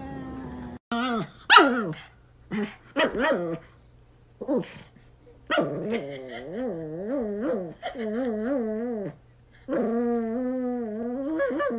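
A small dog howling in a string of calls. The first few are short and slide down in pitch. Then come two long howls whose pitch warbles up and down about three times a second.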